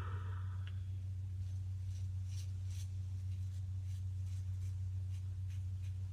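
Faint, short scraping strokes of a Kampfe aluminium single-edge razor cutting stubble, a stroke about every half second, over a steady low electrical hum.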